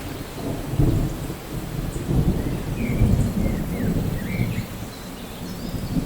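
Thunderstorm: rolling thunder rumbles in low swells over a steady hiss of rain. A few faint, short bird chirps come through in the middle.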